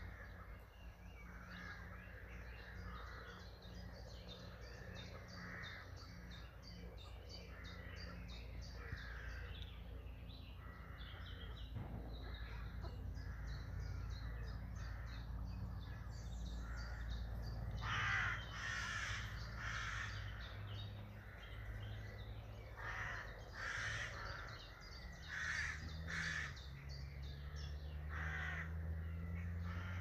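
Crows cawing repeatedly, the calls coming thicker and louder in the second half, with small birds chirping and a steady low hum beneath.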